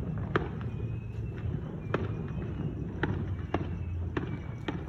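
Fireworks going off: several sharp bangs at uneven intervals over a steady low background rumble.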